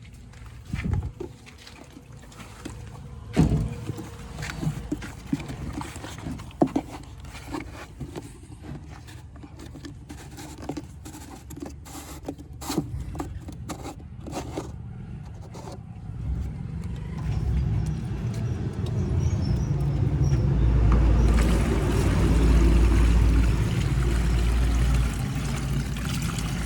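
A diesel machine's engine running low, with scattered clicks and knocks over it. About sixteen seconds in, the engine grows steadily louder and stays loud.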